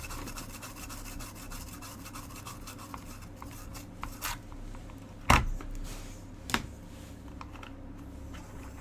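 Bristle brush scrubbing a circuit board wet with isopropyl alcohol, a quick scratchy rubbing that thins out after a few seconds, with two sharp knocks about five and six and a half seconds in.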